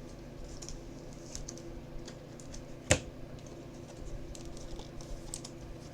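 Baseball trading cards being handled on a table, making light scattered ticks and rustles, with one sharper click about three seconds in, over a steady low hum.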